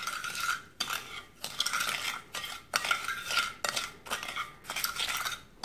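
A spoon stirring brown sugar into salted water in a glass mixing bowl, scraping against the glass in repeated strokes about two a second, mixing to dissolve the sugar.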